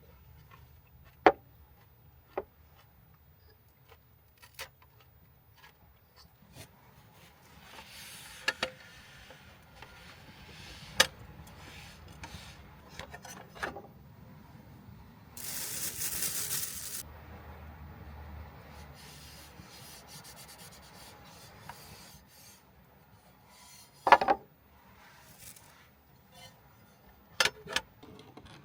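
Scattered clicks, knocks and rubbing of small objects being handled, with a short hiss lasting about a second and a half near the middle, over a low rumble.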